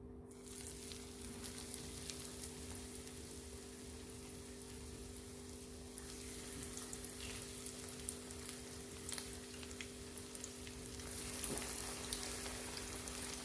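Cornflake-crumbed chicken fillets shallow-frying in hot oil in a pan: a steady sizzle scattered with small crackles and pops, a little stronger near the end. A faint steady hum runs underneath.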